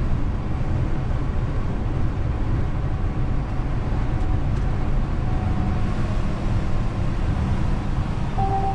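DAF XF truck's diesel engine running with road noise as the truck drives along: a steady low rumble. A short two-note tone sounds near the end.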